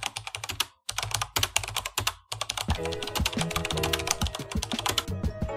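Fast typing on a computer keyboard: a quick run of key clicks, broken by two short pauses. Background music comes in under the typing about halfway through.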